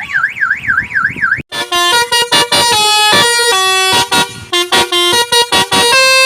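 Basuri 'telolet' musical car horn sounding a siren-like warble, rising and falling about three times a second, which cuts off after about a second and a half. After a short break the horn plays a quick melody of short stepped notes with a pulsing beat.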